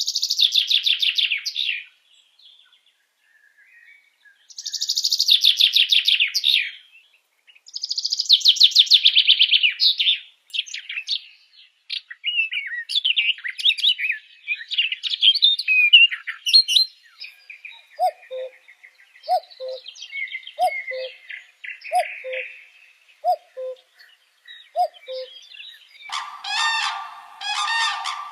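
Several wild birds calling in turn: three rapid, high trills a couple of seconds long each, then a stretch of varied quick chirps, then a low two-note call repeated about six times. Near the end a harsh, honking call begins.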